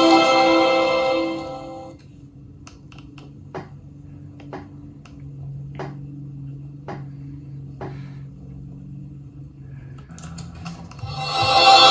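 Music playing from a TV fades out about two seconds in. A quiet stretch follows with a low steady hum and several short, separate ticks. Music starts again near the end.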